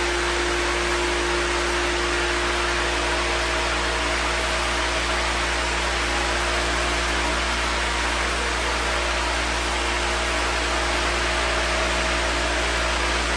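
Square-pad orbital floor sander with its dust vacuum running steadily as it is pushed over a nailed-down hardwood floor, sanding off trowelled-in wood filler. An even, unbroken hiss with a constant hum under it.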